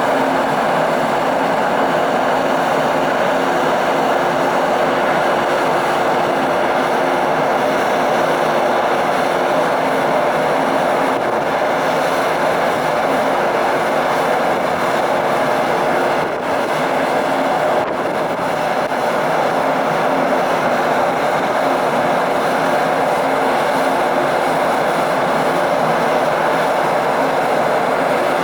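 Large car ferry's engines and machinery running steadily during departure: a constant hum over an even rushing noise.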